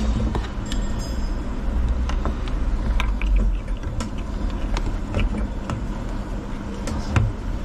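Scattered sharp metallic clicks and taps of hand work as the cleaned fuel-tank float (fuel level sender) is fitted back into the tank, over a steady low hum.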